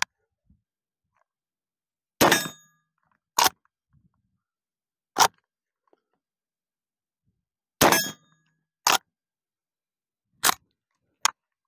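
Winchester 1892 lever-action rifle in .25-20 Winchester being fired repeatedly: a string of sharp reports and clacks about one to two seconds apart, as it is fired and its lever is worked. Two of the reports are followed by a brief metallic ring from steel targets being hit.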